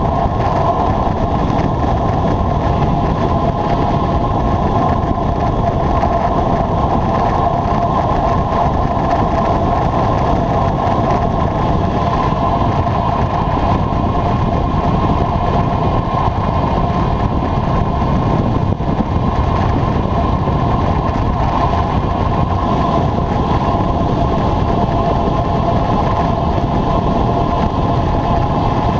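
Steady rush of wind over the camera microphone with tyre and road noise, from a road bike at speed on a paved descent.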